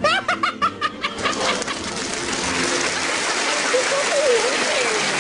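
A quick run of about eight short, high-pitched whoops from two excited male voices in the first second and a half, giving way to steady studio-audience applause.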